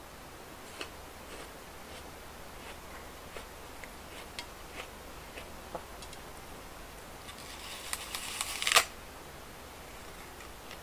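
Small clicks and taps of a tape roll and brown kraft paper handled close to a microphone, then a short burst of paper crinkling near the end, the loudest sound here.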